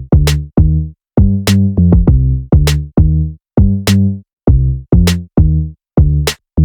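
Background music with an electronic drum beat and a pitched bass line, about two beats a second.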